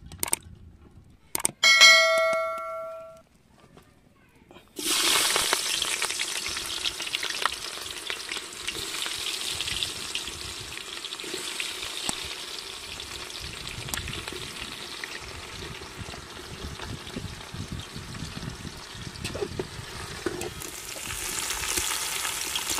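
A single bell-like chime about two seconds in, fading over a second. From about five seconds in, onions and spices sizzle steadily as they fry in hot oil in an aluminium pot.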